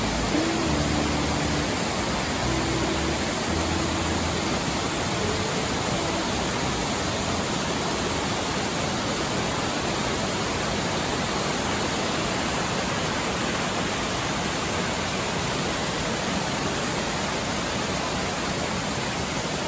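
Waterfall: a steady, even rush of falling water. A few faint held piano notes sound in the first five seconds or so, then only the water is heard.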